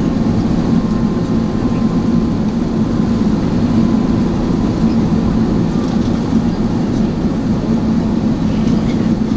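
Airbus A380 cabin noise on descent, heard from inside the cabin: a steady low rumble of the engines and airflow, with a faint thin whine that fades out about halfway through.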